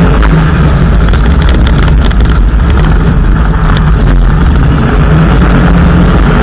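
Mitsubishi Lancer EX turbo rally car driven hard on gravel: the turbocharged four-cylinder engine runs loud and fairly steady under load over heavy road and wind noise. Scattered sharp ticks in the first half are stones flicking against the car.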